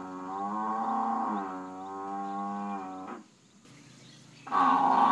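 African buffalo lowing: one long call that ends about three seconds in, then a second call starting near the end.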